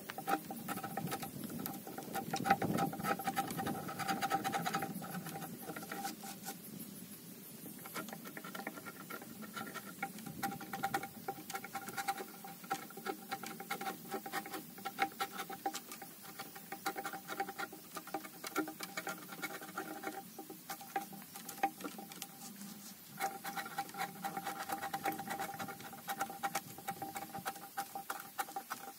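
Hand tool scraping and tapping on a raw paulownia slab: dense, irregular small clicks and scrapes throughout, over a steady high tone that drops out briefly twice.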